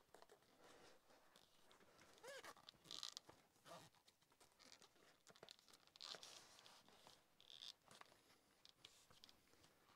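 Near silence with faint, scattered scuffs and creaks of a damp leather sheath and strap being handled and fitted around an axe head.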